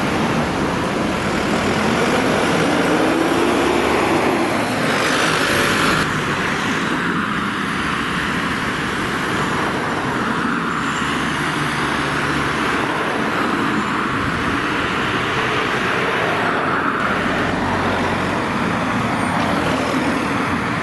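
Fire engines and other emergency vehicles driving past in street traffic, their diesel engines running with tyre and road noise. A brief louder hiss comes about five seconds in.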